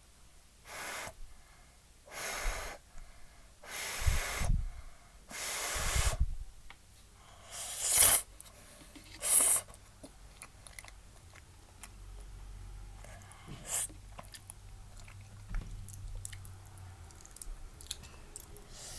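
Someone eating hot udon noodle soup close to the microphone: about six loud, airy slurps in the first ten seconds, then quieter chewing with small clicks.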